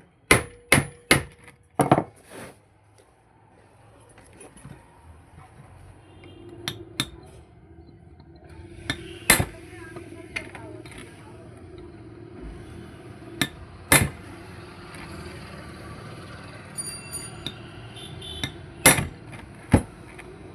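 Hammer blows and metal clinks on a rusted cooler motor's aluminium body as it is knocked to free the seized casing: a quick run of strikes at the start, then single blows every few seconds.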